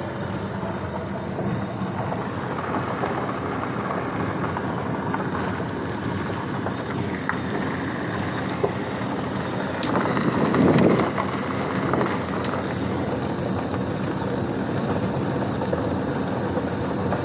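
Vehicle driving slowly on a gravel road, heard from inside the cab: steady engine and tyre noise with scattered clicks of gravel, swelling louder for a moment about ten seconds in.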